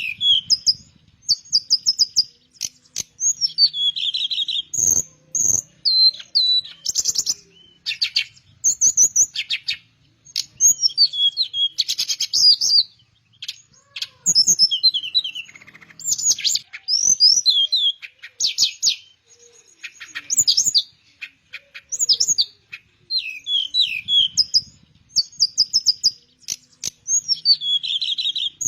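Teledekan melayu, a sikatan flycatcher, singing continuously in its full song: short phrases of clear, high whistled notes and quick rapid trills, one after another with brief pauses between them.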